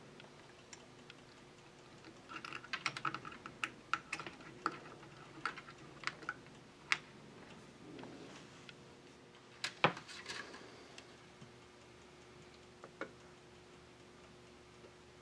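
Irregular light clicks and taps of capacitors and their leads being handled and fitted into a circuit board. They come in a busy cluster over several seconds, then a sharper group about ten seconds in, over a faint steady hum.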